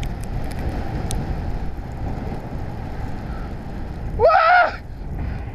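Steady rushing noise of sliding snow and wind on the GoPro's microphone as a snowboarder is swept down in a small avalanche. About four seconds in, a short high cry rises over it.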